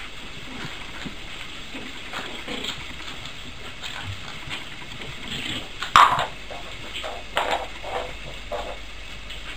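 Puppies scuffling in play on a tiled floor, giving a few short yips and squeaks; the loudest is a sharp one about six seconds in, followed by three or four shorter ones.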